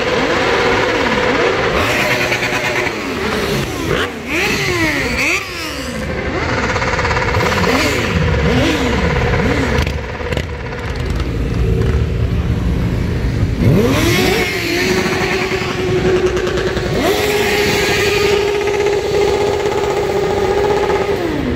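A stream of motorcycles and scooters riding slowly past, each engine's pitch rising and falling as it goes by. In the second half, one note holds steady for several seconds.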